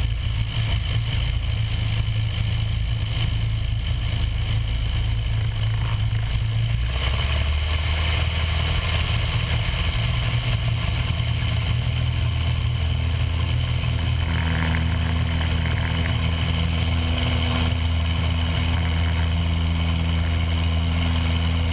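The piston engine and propeller of a Cessna 172 running at high power during the takeoff roll, a steady loud drone whose note changes about seven seconds in.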